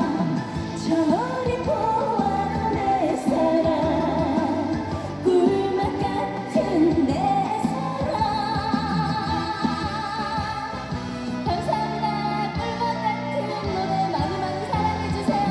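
A woman singing a trot song live into a microphone over instrumental backing, with vibrato on the held notes.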